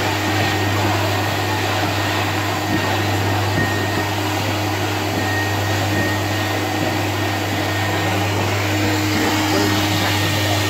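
Build-A-Bear stuffing machine running steadily, its blower blowing stuffing into a teddy bear while the foot pedal is held down: a continuous rush of air over a steady motor hum.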